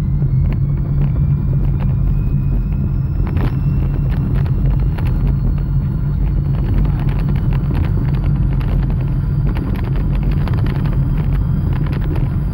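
Small electric car on the move: steady low rumble from the road with a faint high whine that slowly climbs in pitch, and scattered rattles and clicks.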